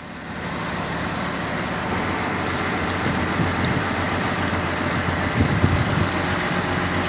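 Boat engine running steadily at trolling speed, a low hum under wind rushing over the microphone and water noise; the noise swells about half a second in.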